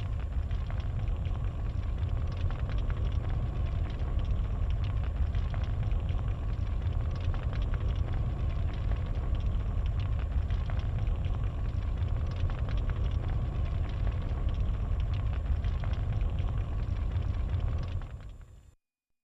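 Sound effect of a large fire burning: a steady low rumble with fine crackling throughout, fading out near the end.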